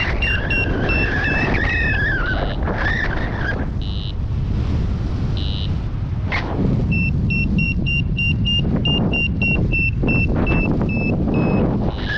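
A paragliding variometer giving short, evenly spaced beeps, about three a second, in two runs, the climb tone that signals rising air. Heavy wind noise on the microphone runs underneath. A wavering whistling tone sounds in the first few seconds.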